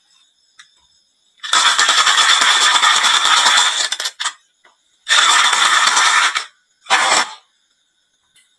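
Marbles rolling and rattling along a wooden marble run in three runs: a long one of nearly three seconds starting about a second and a half in, a shorter one after a pause, and a brief one near the end.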